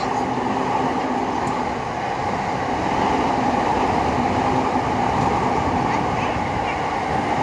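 Electric train running past on the tracks below: a steady rumble of wheels on rails with a faint motor hum.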